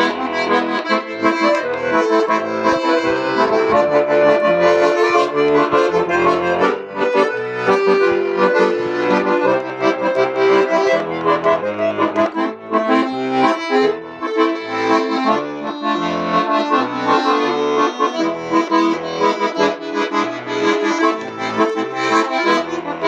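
Bayan (Russian button accordion) playing an instrumental interlude: a melody of held notes over rhythmic left-hand bass notes.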